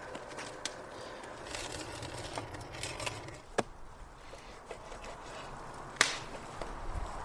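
Knife cutting raw bison meat on a wooden cutting board, with scattered light taps and two sharp knocks of the blade against the board, the second the loudest.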